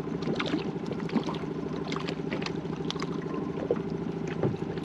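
A steady low hum from a running motor, with scattered small clicks and taps as a fishing rod and reel are handled and wound in.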